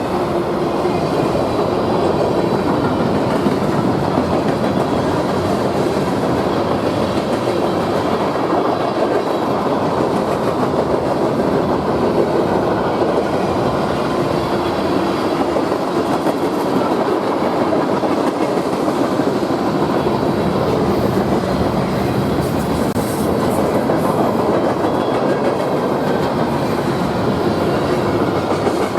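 A train rolling past on the track: a steady, loud rumble of cars and wheels with a clickety-clack of wheels over rail joints.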